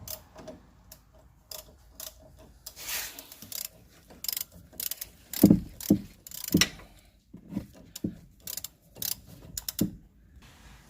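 Hand ratchet with a 5/8 socket clicking in irregular strokes as it runs a nut down on a sway bar link, with a few louder metallic knocks about halfway through.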